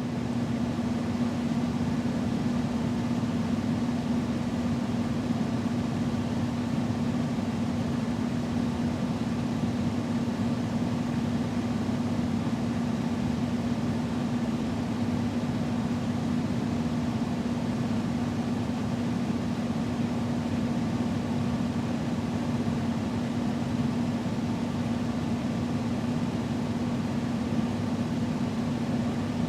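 Built-in window air-conditioning unit running steadily: a constant hum over an even rush of air.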